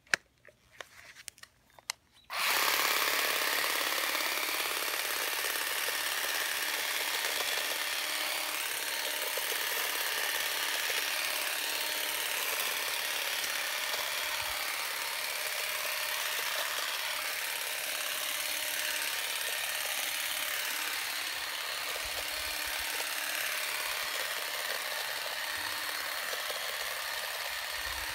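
A few handling clicks, then about two seconds in a Stihl HSA 25 cordless shrub shear switches on and runs with a steady buzz as its reciprocating blades cut through a shrub's leafy twigs.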